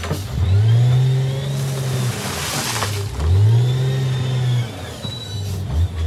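Wheel loader's diesel engine revving up and falling back twice as it backs up and drives forward. A brief gritty rasp of rock sounds about two and a half seconds in.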